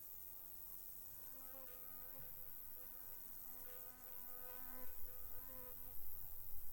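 A flying insect buzzes close by with a steady, slightly wavering hum. It comes in about a second in and fades away near the end.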